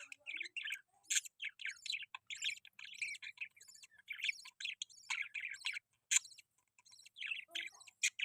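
Pet budgerigars chattering: a steady stream of quick chirps and warbling notes, with sharp clicks mixed in.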